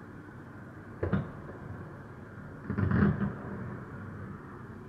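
Fireworks shells bursting: one sharp bang about a second in, then a louder cluster of several bangs in quick succession near the middle, over a steady hum of city traffic.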